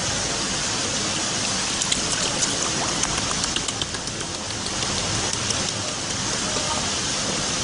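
Steady rushing water noise, like rain, with a run of sharp clicks and taps from about two to five seconds in.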